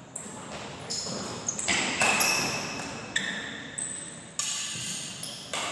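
Badminton rackets striking the shuttlecock in a fast doubles rally: a string of sharp, pinging hits every half second to a second, each ringing and echoing in the hall.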